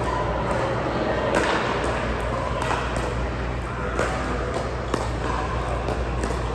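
Scattered sharp clicks and knocks, the loudest about four and five seconds in, over a steady low hum and room noise.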